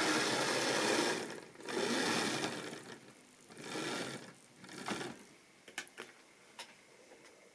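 A model railway diesel locomotive's motor and wheels whirring along sectional track with its coaches. The whirr drops off after about a second and fades in weaker surges as the train slows to a stop, followed by a few small sharp clicks.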